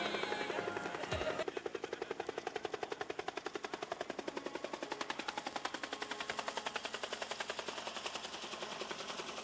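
Helicopter rotor chopping, a rapid even beat of about ten a second that sets in about a second and a half in and slowly fades.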